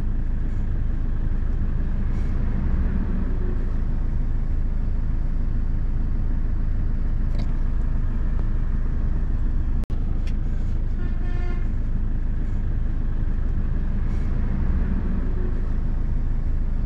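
Steady engine and road noise heard from inside a moving Toyota car's cabin. A short vehicle horn toot sounds about eleven seconds in.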